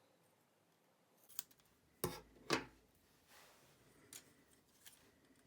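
Scissors snipping plain paper in a few short cuts. The two loudest snips come about two seconds in, half a second apart, as paper flaps are trimmed shorter.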